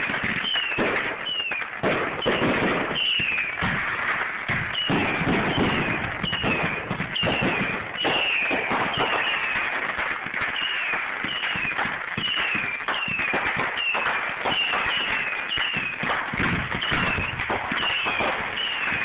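Consumer fireworks going off in a dense, continuous barrage of rapid cracks and bangs. Short falling whistle-like tones recur about once a second throughout.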